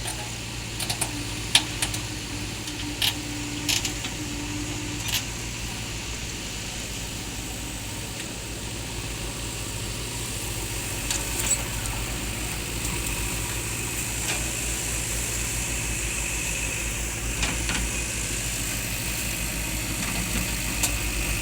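Diesel engine of a JCB backhoe loader running steadily, with sharp knocks now and then, most of them in the first few seconds. The engine grows slightly louder in the second half.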